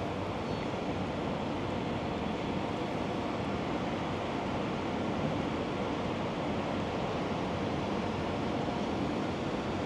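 Steady, even rushing ambient noise with no distinct events.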